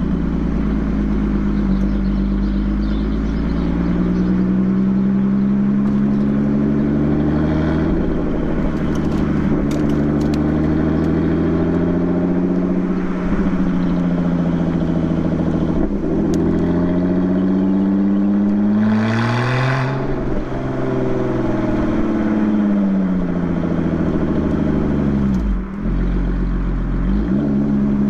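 Lotus Exige 430 Cup's supercharged V6 running, its pitch rising and falling again and again as it is driven on and off the throttle. There are a few faint crackles about a third of the way in, and a short loud rush of noise about two-thirds through.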